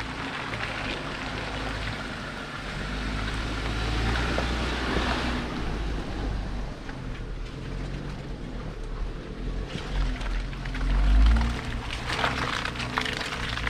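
A Jeep's engine running at low speed off road, with its tyres rolling and crunching over rough ground and small knocks and rattles throughout.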